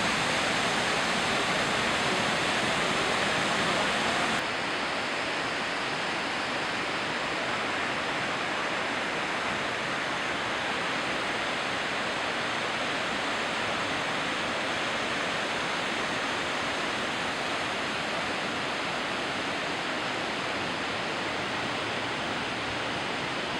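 Steady rushing of a swollen, silt-laden river in full flood. The sound steps down slightly and turns a little duller about four seconds in.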